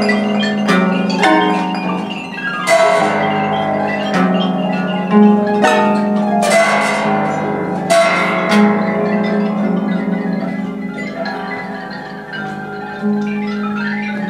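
Free-improvised music for pedal harps and mallet percussion: marimba and xylophone notes are struck and ring over steady low notes and plucked harp strings, with several loud struck chords along the way.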